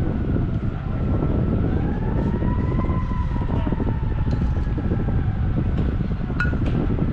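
Wind buffeting the microphone, with a faint distant tone that slowly rises and then falls in pitch. A single sharp knock comes near the end.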